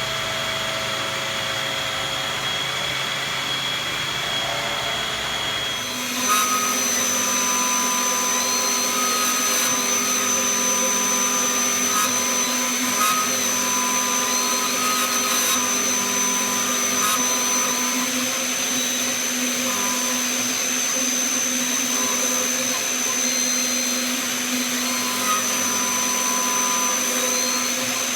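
BF20 CNC milling machine running through a face-milling job: a steady machine whine with several held tones. About six seconds in it shifts, with a new high-pitched whine and tones that switch on and off.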